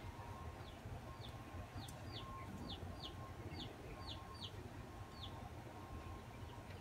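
A bird chirping faintly in the background: about ten short, high chirps that each slide downward, roughly two a second, stopping about five seconds in.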